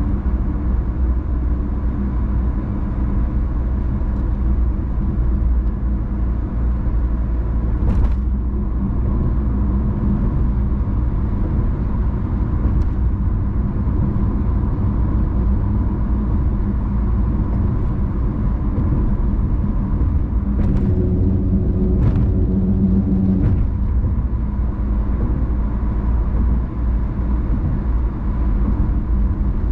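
Car driving along city streets: a steady low rumble of engine and tyres, with a few brief knocks through the middle and latter part.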